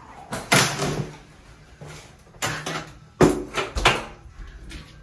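Several short knocks and rattles from a glass shower door being moved and handled, spaced irregularly.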